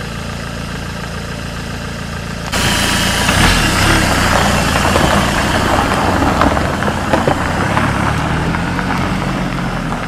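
A vehicle engine running at idle, steady for about two and a half seconds. Then the sound suddenly grows louder and rougher, with a rushing hiss over the engine hum.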